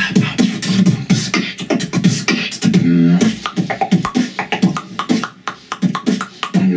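Human beatboxing: a fast, even rhythm of mouth-made kick, snare and hi-hat sounds with hummed low bass notes between the hits.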